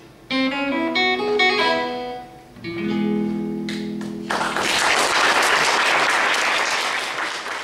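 Acoustic twelve-string guitar playing the closing notes of a song and ending on a held chord, followed about four seconds in by audience applause that continues to the end.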